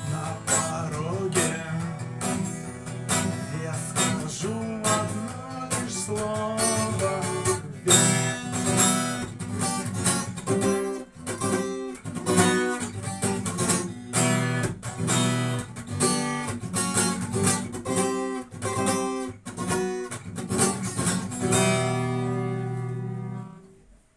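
Guitar strumming the instrumental ending of the song, closing on a held chord that rings out and fades away in the last couple of seconds.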